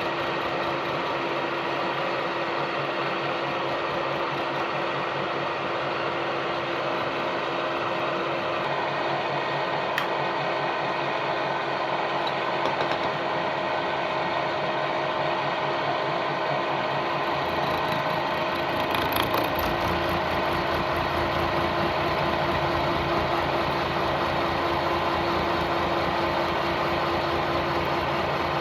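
Metalworking machine tool running and cutting: a steady motor hum under a fast, even mechanical chatter, with a single sharp click about ten seconds in and a heavier, deeper sound from about eighteen seconds in.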